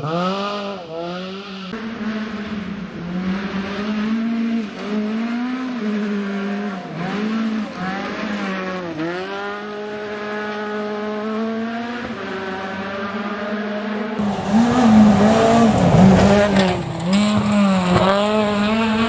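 Ford Fiesta R2 rally car's engine revving hard, its pitch climbing and dropping again and again through gear changes and lifts. About three-quarters of the way through it gets louder, with a rush of noise under the engine.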